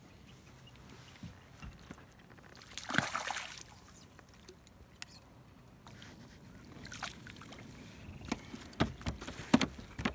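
A hooked fish splashing briefly at the water's surface about three seconds in, over faint water lapping at the boat. Scattered light knocks and clicks in the second half.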